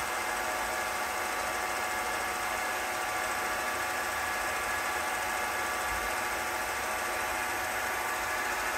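Keystone R-8 8mm film projector running steadily, its motor and film mechanism giving an even whir with a fixed hum of several tones. It is running on a new rubber drive belt after lubrication.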